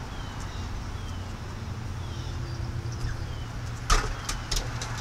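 Steady low rumble of distant road traffic, with faint short falling chirps repeating every second or so. About four seconds in comes one sharp click, followed by a few lighter clicks.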